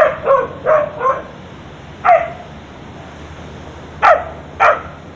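Street dog barking up at a monkey in a tree: a quick run of four barks, a single bark about two seconds in, then two more barks near the end.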